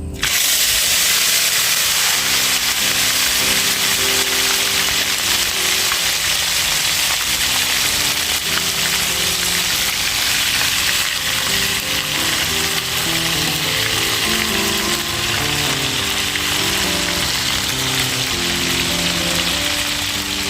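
Small turmeric-coated pla siw fish deep-frying in hot oil: a loud, steady sizzle that begins abruptly right at the start and holds throughout. Music plays underneath.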